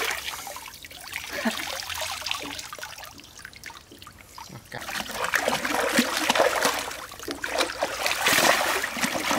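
Water dripping and splashing off a large raw cow stomach as it is lifted out of a shallow stream and dunked back in to rinse it. The dripping is quieter for a while, then the splashing picks up about five seconds in.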